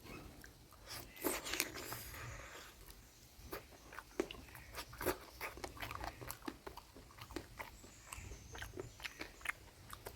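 Close-miked eating of mutton curry: a person biting and chewing, with many short wet mouth clicks and smacks at an irregular pace.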